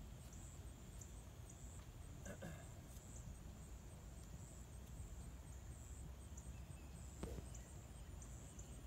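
A driver striking a golf ball off the tee: one sharp crack about seven seconds in. High insect chirping repeats evenly throughout.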